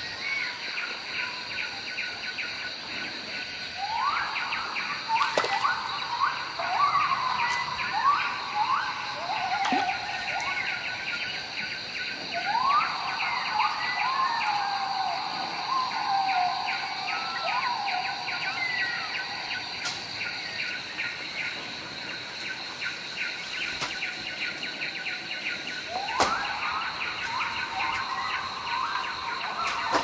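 Tropical forest soundscape: a steady high-pitched drone and fast chirring underneath, with three runs of rising, whistled animal calls, each run lasting several seconds.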